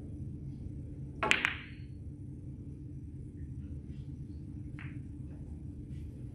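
A snooker shot: the cue tip strikes the cue ball about a second in, and a split second later the cue ball clicks sharply into an object ball. A fainter ball click follows a few seconds later, over a steady low hum.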